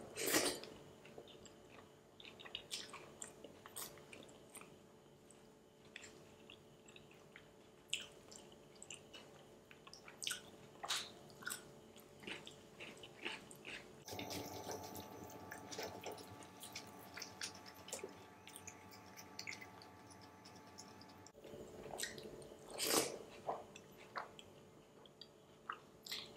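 Quiet chewing of food eaten by hand, with scattered soft wet mouth smacks and clicks.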